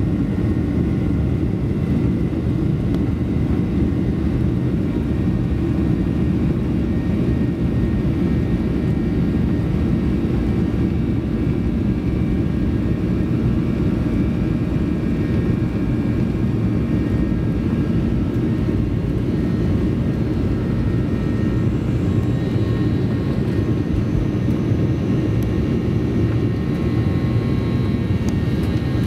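Cabin noise of a Boeing 737-800 on its takeoff roll: the CFM56 turbofans at takeoff thrust make a steady, loud, deep rumble. A faint thin whine rides above it and grows more noticeable in the last few seconds as the jet rotates.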